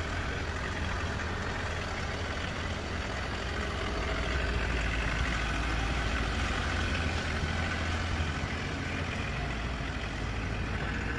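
Ford Ranger ute's engine running at a steady idle.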